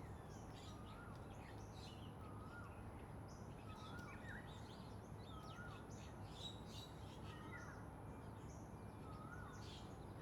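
Birds calling: a short rising-then-falling note repeats every second or two, with quick higher chirps from other birds over a steady background hiss.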